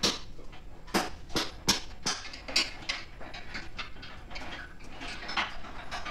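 A quick run of sharp knocks and taps, about three a second at first, thinning out and fading after about three seconds, from hands-on work at a two-post car lift's post.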